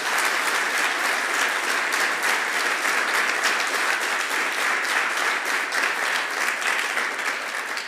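Audience applauding: many hands clapping at once, holding steady throughout.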